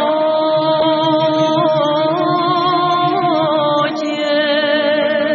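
Voice singing a Macedonian folk song in long, held, ornamented notes that glide from pitch to pitch.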